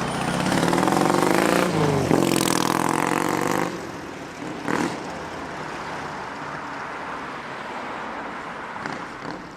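A motor vehicle passing on the street, its engine note climbing, dropping about two seconds in as it shifts, then climbing again before fading into steady traffic noise.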